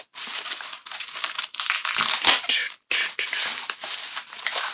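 Bubble wrap crinkling and tearing as it is pulled off a tightly wrapped hardcover book, an uneven run of rustles that breaks off briefly twice and is loudest a little after two seconds in.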